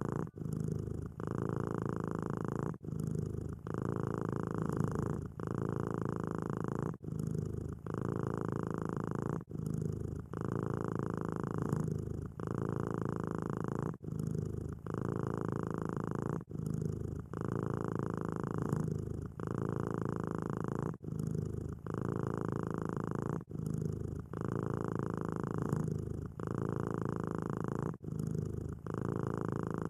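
Cat purring steadily, with brief breaks at each breath in a regular rhythm, roughly one breath cycle every two seconds.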